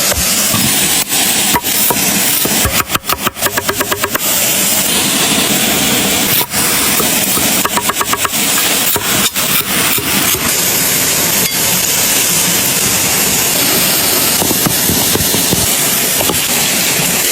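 Steady rush of running water from a stream, with a couple of short runs of rapid clicking and a few single knocks.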